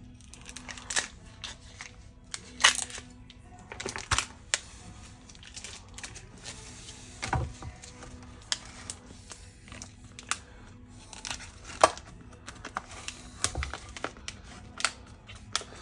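Plastic wrapping on a ham crinkling and tearing as it is cut open with a knife and peeled off, an irregular run of sharp crackles and snaps.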